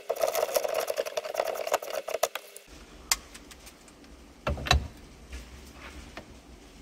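Socket ratchet spun quickly to run a steering-wheel nut down its shaft: a fast, dense run of clicks for about two and a half seconds. About four and a half seconds in comes a single loud knock as a torque wrench goes onto the nut.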